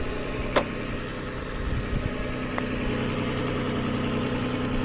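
2007 Lexus ES350's 3.5-litre V6 idling steadily, with a single sharp click about half a second in.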